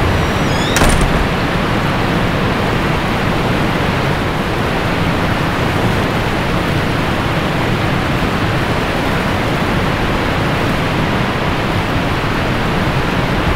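Steady rushing-water noise, like a river sound effect, even and unbroken, with one short click under a second in.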